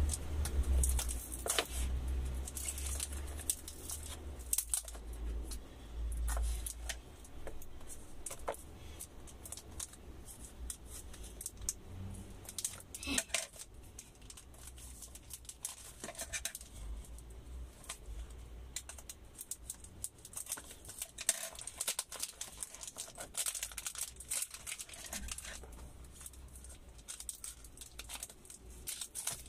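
Scissors snipping again and again through tape and paper wrapped around a bottle, with crinkling of the wrapping and handling noise in between.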